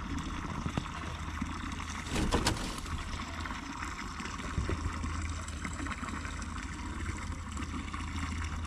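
Steady trickle of running water, with a low hum beneath it and a short louder patch of handling noise about two seconds in.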